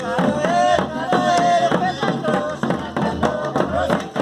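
Batuque folk music: voices singing a melody over a steady percussion beat.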